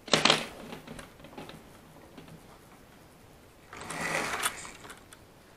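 Small electric motor of a model steam locomotive buzzing twice in short bursts, once right at the start and again about four seconds in, as a hand nudges the engine along the track. The engine is running poorly, and the owner thinks it may be overdue for a service.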